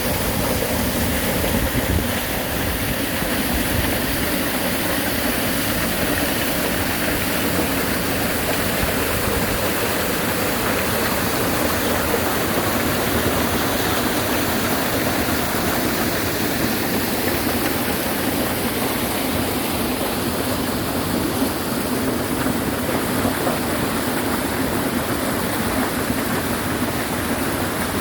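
Mountain stream water rushing over rocks in a steady, unbroken flow.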